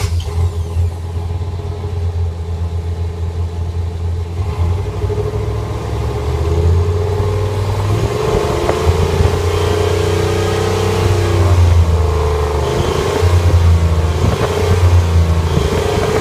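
Truck engine running through a tailpipe fitted with two novelty turbo-sound exhaust whistles. It is revved up and down, with a wavering whistle tone that rises and falls with the revs, clearest around the middle.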